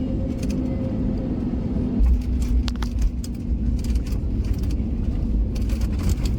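Airliner cabin noise during landing: a steady engine hum and low rumble, which about two seconds in gets suddenly heavier with rattling clicks as the wheels meet the runway and the plane rolls out.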